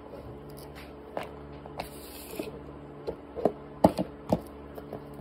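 Chef's knife cutting onion on a plastic cutting board: scattered knocks of the blade on the board, coming closer together and louder in the second half.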